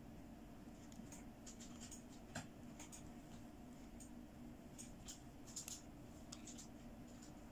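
Faint rustling and small plastic clicks from hands handling a fashion doll, its faux-fur jacket and plastic accessories, with one sharper click about two and a half seconds in, over a low steady hum.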